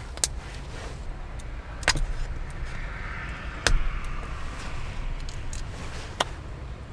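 A few sharp, separate clicks and knocks over a steady low rumble, the loudest knock about halfway through.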